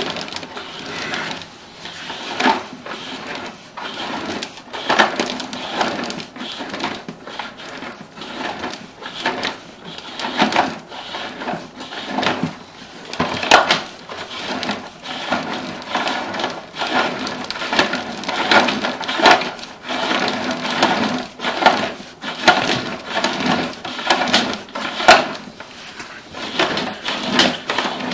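Sewer inspection camera's push cable being fed into a main sewer line, with irregular knocks, clatters and rubbing as the cable and camera head travel through the pipe.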